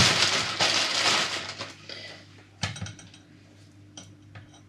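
Potatoes being measured out into a bowl: a rustling, tumbling noise for about the first second and a half, then a few separate light knocks and clinks.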